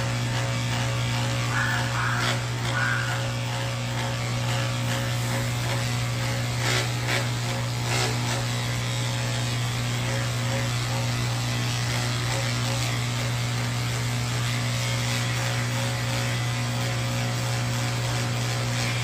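Electric pet clippers running steadily with a low, even hum as they shave through a cat's matted coat, with a couple of faint clicks about seven and eight seconds in.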